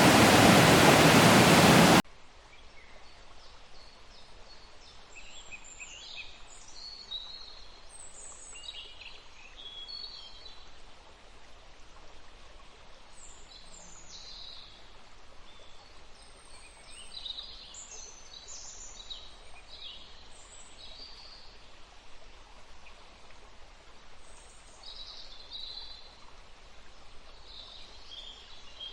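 Waterfall rushing loudly, cut off abruptly about two seconds in. After that comes a faint, steady rush of water with birds chirping on and off.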